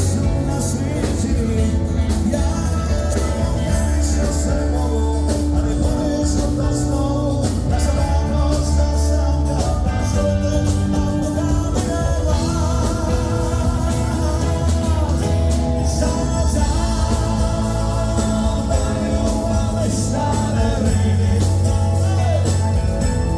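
Rock band playing an instrumental passage: bass and drums keep a steady beat under a lead instrument carrying a bending melody.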